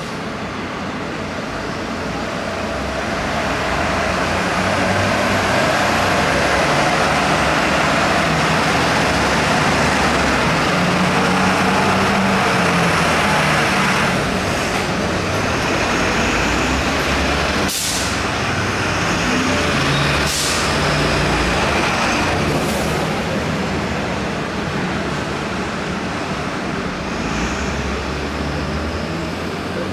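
Heavy vehicles' engines running amid road traffic noise, with three short sharp sounds a few seconds apart around the middle.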